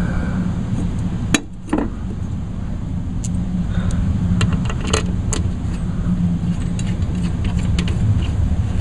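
Light metal clicks and taps from a lawnmower blade being fitted back onto its blade adapter by hand, a couple about a second in and several more around five seconds in, over a steady low rumble.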